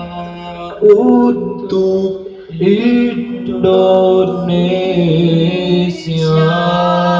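Male a cappella group singing a sholawat in march style through microphones: a low note is held steadily underneath while the melody moves above it, with a short break about two and a half seconds in.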